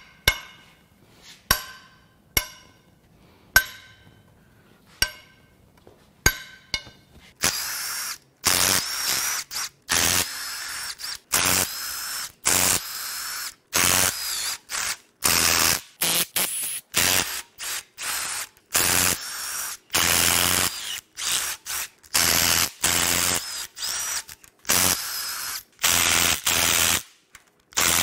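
Sharp metallic cracks with a ringing tail, about one a second, as a long breaker bar breaks the S55's T60 Torx cylinder-head bolts loose. After that, about a quarter of the way in, a Milwaukee Fuel cordless ratchet takes over, running in repeated short bursts with a thin whine as it spins the head bolts out.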